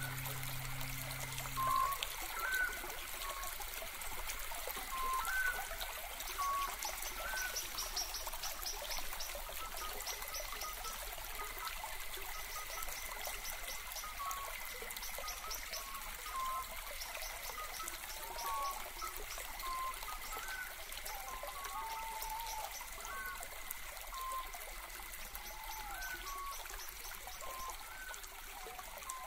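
A stream trickling steadily, with small birds chirping in short, scattered calls. A held music chord cuts off about two seconds in.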